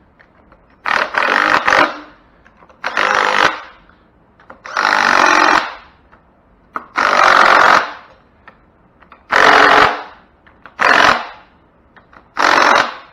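Cordless power driver spinning a 9/16-inch socket, running bolts into a Cub Cadet hydrostatic transmission in seven short bursts of about a second or less each, with pauses between.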